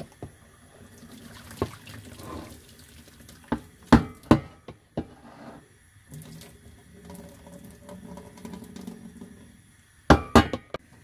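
Hot cooking water being poured off boiled potatoes from a pot held with its glass lid ajar, splashing into a stainless steel sink. A few sharp knocks come about 4 seconds in and again near the end.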